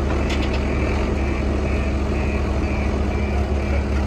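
JCB Loadall telehandler's diesel engine running steadily under load, with a reversing alarm beeping about twice a second. A few light clicks come about a third of a second in.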